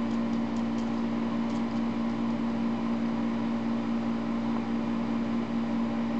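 A steady machine hum with an even low drone that does not change.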